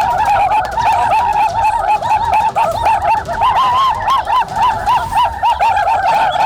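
Birds calling: a dense, steady chorus of short notes that rise and fall, repeating several times a second.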